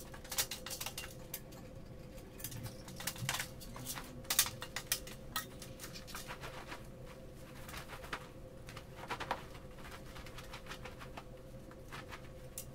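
Fabric rustling with scattered light clicks and knocks as a green-screen backdrop cloth is unhooked and pulled down, over a faint steady hum.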